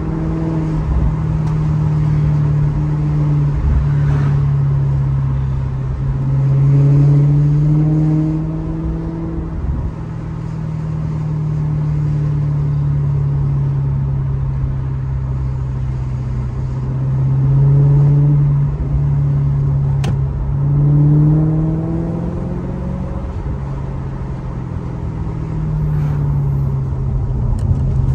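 Maserati GranTurismo's V8 engine running under way, its note rising and falling with the throttle, with surges of acceleration about a quarter of the way in and twice past the middle. A single sharp click comes about two-thirds of the way through.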